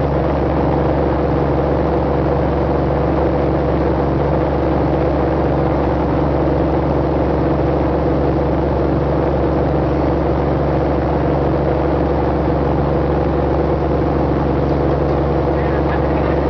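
Large speedboat under way at speed: a loud, steady engine drone with the rush of water churned up in its wake.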